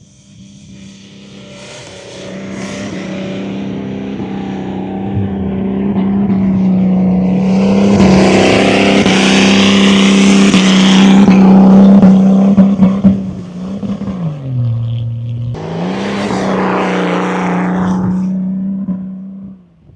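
Off-road 4x4's engine held at high, steady revs under load, growing louder over the first dozen seconds. About fourteen seconds in, the revs drop briefly and then climb back up.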